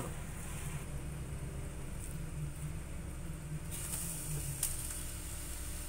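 Thickened coconut burfi mixture sizzling faintly in the pan over a steady low hum, with a single click a little past the middle.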